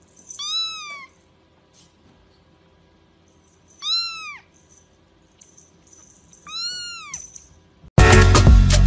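A cat meowing three times, a few seconds apart, each call rising and then falling in pitch. Loud music starts abruptly near the end.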